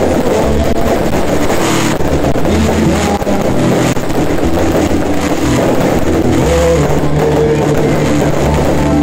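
Loud music over a sound system, with a steady bass line that changes note every second or two. A few dull bangs from the fireworks go off within it.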